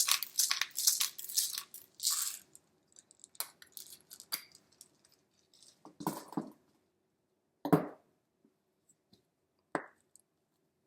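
Pepper being shaken out of its container onto a plate: a quick run of rattling clicks for about two seconds, then scattered light clicks and a couple of short knocks.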